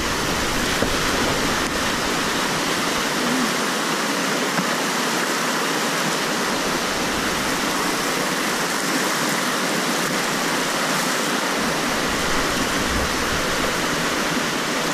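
Whitewater rapids rushing steadily, heard close up from a kayak running down the river.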